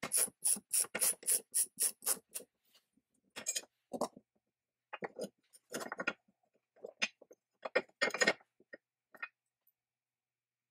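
Socket ratchet wrench working a nut off the band saw's cast-iron table trunnion, a quick run of ratcheting strokes about four a second for a couple of seconds. Then come scattered metal clicks and clinks as the nut and parts are handled.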